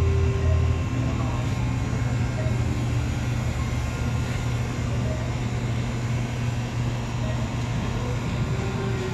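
Steady low hum of supermarket background noise, with faint voices in the background.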